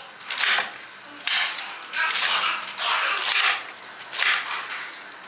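A knife chopping crisp romaine lettuce on a cutting board. There are about five crunchy cuts, roughly one a second.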